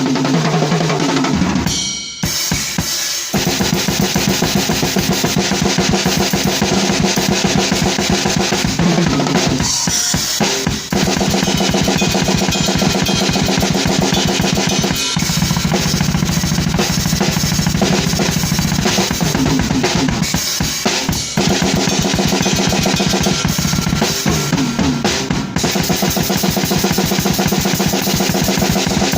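Drum kit played as fast blast beats, with rapid bass drum strokes driven by ankle technique under a fast snare, broken by a couple of short pauses.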